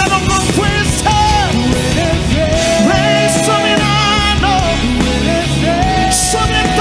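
Live Christian rock worship band playing loudly: drum kit, bass and keyboards under a lead melody line of long held notes that slide from one pitch to the next.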